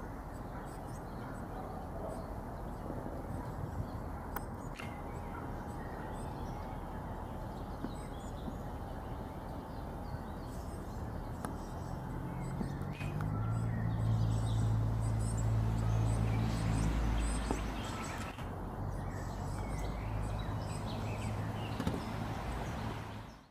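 Outdoor ambience with faint bird chirps. About halfway through, a low, steady engine hum comes in, typical of a railway locomotive's engine. It is loudest a few seconds later and eases off near the end.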